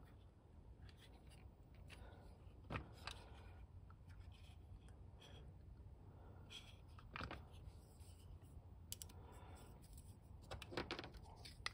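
Near silence with faint handling noise: a few light clicks and taps as a plastic toy motorcycle is turned over by hand.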